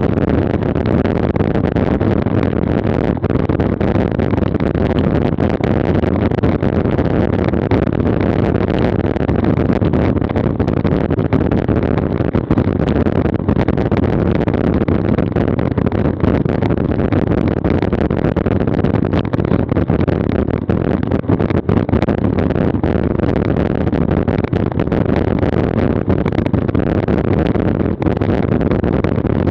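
Steady rumble of wind and road noise on an action camera's microphone from a road bicycle being ridden, with small knocks and bumps throughout.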